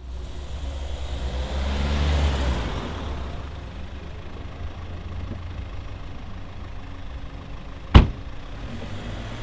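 Hyundai Tucson SUV driving up and slowing to a stop, its tyre and road noise swelling and then settling to a steady engine idle. Near the end a single sharp, loud thump, a car door being shut.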